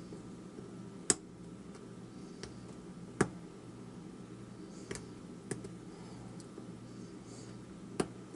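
Lock pick and tension wrench working the pins of a Master Pro Series padlock's KIK core: five sharp metallic clicks, spaced a second or more apart, over a faint steady hum.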